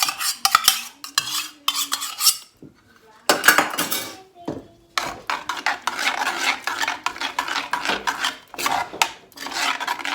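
A spoon clinking and scraping in a pot as yogurt is stirred into mashed pumpkin for pachadi. The stirring comes in short spells with brief pauses in the first half, then runs on steadily from about halfway.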